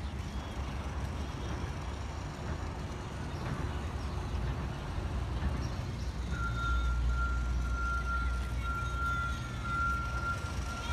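City street traffic: the low engine rumble of passing cars, growing louder about six seconds in as a vehicle drives by. A steady high-pitched whine joins at the same moment and holds.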